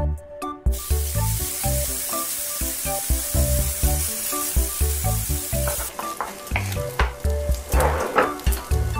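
Chopped bacon hitting a hot cast-iron skillet and starting to sizzle about a second in, stirred with a wooden spoon; about six seconds in the sizzle drops to a quieter crackle, with a few spoon scrapes near the end. Background music with a steady beat plays throughout.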